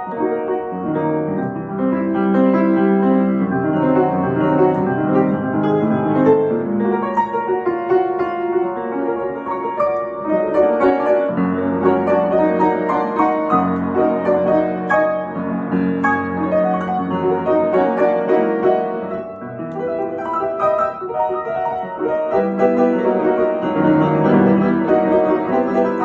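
Upright piano played as a fast, hectic improvisation in F-sharp major, both hands moving in dense runs and chords over the low and middle registers.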